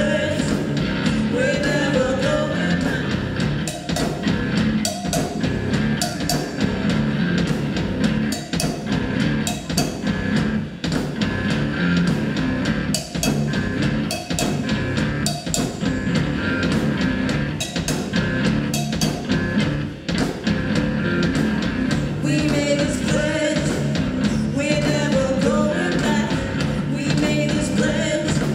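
Live rock band playing, with drums keeping a steady beat under a woman's lead vocal; her singing drops out through the middle and comes back in toward the end.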